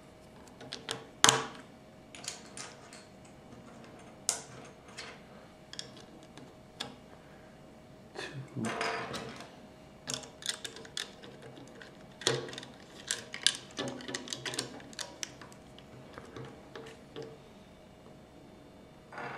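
Plastic Lego bricks clicking and clattering as pieces are handled and pressed together on a wooden tabletop: an irregular scatter of sharp clicks, the loudest about a second in.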